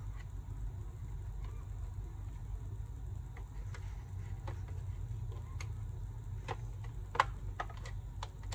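Small plastic clicks and ticks from an Asus X441S laptop's case being pried apart, its clips letting go, with a few sharper clicks near the end. A steady low hum runs underneath.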